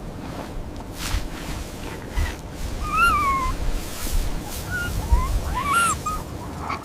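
A dog whimpering: short, high, wavering whines, one about three seconds in and a few more near the end, over a low steady rumble.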